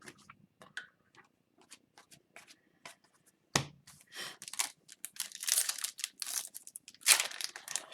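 A few light clicks and taps of cards being handled, a single knock about three and a half seconds in, then a trading-card pack's wrapper being torn open and crinkled, in bursts of rustling that grow louder toward the end.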